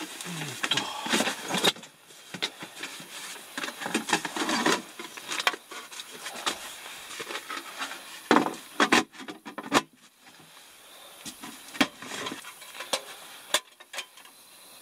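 Handling noise as a portable gas heater is lifted and its case opened: irregular rubbing and rustling, with a few sharp clicks and knocks in the second half.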